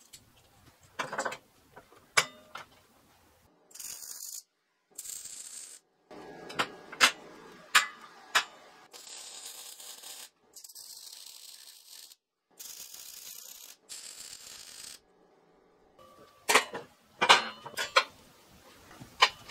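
Several short bursts of MIG welding, each a steady crackling hiss lasting one to two seconds, as a steel grill is welded onto a steel firepit. Sharp metal clanks and taps come before, between and after the welds as the parts are clamped and handled.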